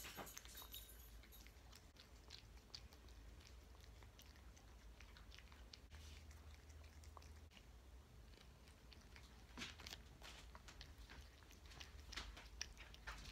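Domestic cat eating wet canned cat food: faint chewing, with soft scattered clicks that come more often in the last few seconds.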